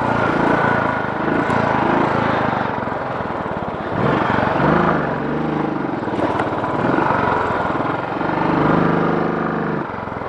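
Royal Enfield single-cylinder motorcycle engine pulling in low gear over rough rocky ground, its revs rising and falling, then held steadier near the end.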